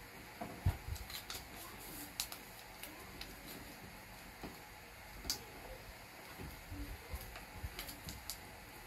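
Small squares of origami paper being folded and creased by hand: scattered soft crinkles, taps and clicks, with a louder knock against the work surface about a second in.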